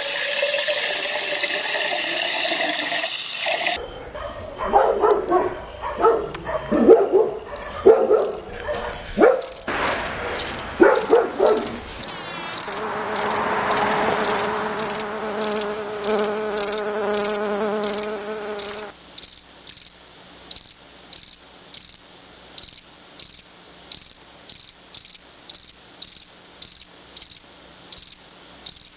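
A cricket chirping steadily, about two short high chirps a second, which is heard alone over a quiet background in the last ten seconds. In the first few seconds a loud steady hiss covers it, and after that, until about two-thirds of the way through, other irregular and humming sounds lie over it.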